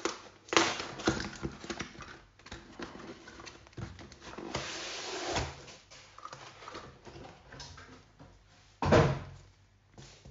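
Unpacking from a cardboard box: cardboard flaps and packing scraping and rustling, a longer sliding scrape in the middle as the foam-wrapped contents come out, and one louder bump near the end.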